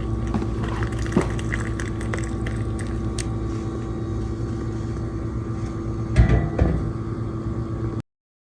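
Steady mechanical hum with light scattered clicks and two louder knocks a little after six seconds in; it cuts off suddenly near the end.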